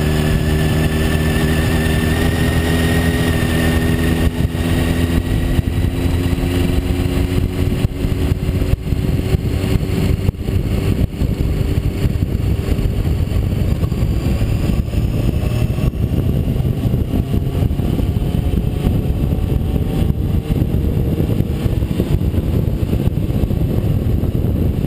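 Honda CBR600 F4i sport bike's inline-four engine running at highway speed. Its note rises slightly over the first few seconds, then sinks under a loud, steady rush of wind and road noise at the microphone, with a faint rising tone later on.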